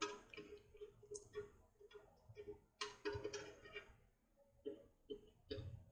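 Faint scattered clicks and light knocks as a Mazda Miata 1.8 aluminium oil pan is handled and set against the engine block's mating flange.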